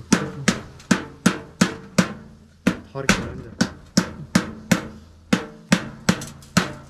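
Rapid, steady knocking on a wooden beehive, about three knocks a second, each ringing briefly over a steady low hum. The knocking drives the bees off the combs before the honey is cut out.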